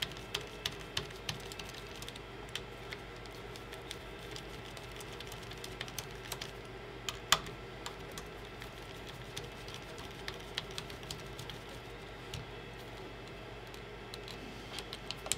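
Light, irregular clicks and taps of a screwdriver and fingers working on a Prusa i3 MK3S printer's plastic extruder, with one sharper click about seven seconds in, over a steady low hum.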